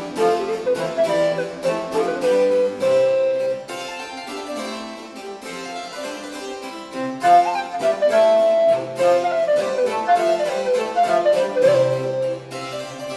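Baroque harpsichord music playing, a quick, continuous stream of plucked notes.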